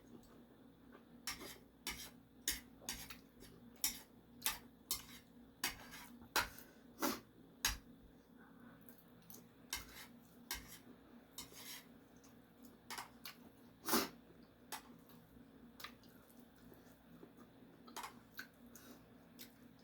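Eating utensils clinking and tapping against a bowl while a meal of instant noodles is eaten: irregular sharp clicks, frequent for the first eight seconds or so, then sparser, with one loud clink about fourteen seconds in.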